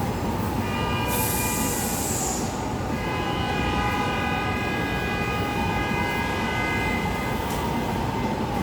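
New York City subway train running through an elevated station: a steady rumble, with a short high ringing tone about half a second in, a hiss about a second in, and a longer held high tone from about three to seven seconds in.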